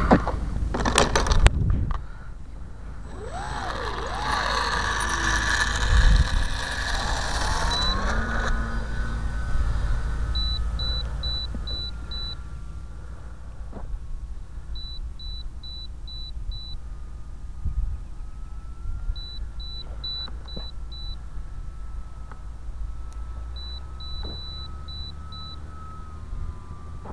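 Brushless electric motor and propeller of a radio-controlled Cessna model. First a few sharp clicks, then a loud buzzing whine whose pitch rises and bends for several seconds, settling into a steadier, fainter whine that drifts slightly in pitch. Groups of about five short high electronic beeps repeat every four seconds or so.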